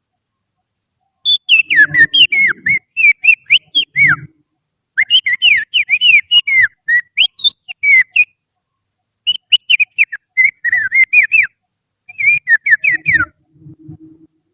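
Finger whistling that imitates oriental magpie-robin song: four quick phrases of chirping whistled notes, most of them sliding downward, with short pauses between.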